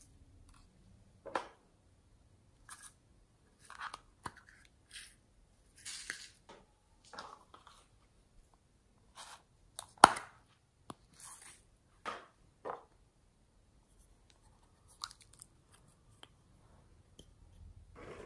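Small plastic topping containers handled and snapped open and shut, with sequins and glitter shaken and tipped out: a string of short clicks and rustles with quiet gaps between them, the sharpest a loud snap about ten seconds in.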